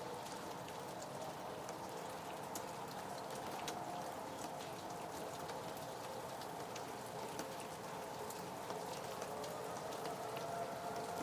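Rain falling, a steady hiss with scattered sharp drop ticks, over a faint steady hum; near the end a faint tone begins to rise.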